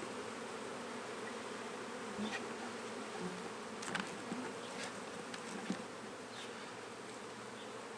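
A dense mass of honey bees buzzing steadily around a freshly closed hive box holding a newly hived swarm.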